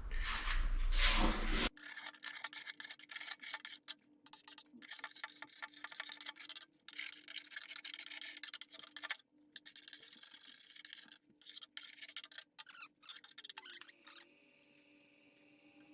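Quick, irregular scraping and rubbing strokes on metal: old paint, primer and filler being worked off an aluminum door skin. A faint steady hum runs underneath, and a louder rushing noise fills the first second and a half.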